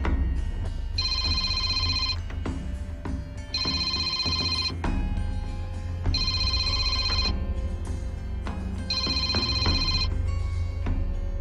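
Mobile phone ringing: four electronic rings of about a second each, roughly two and a half seconds apart, over background music with a deep bass.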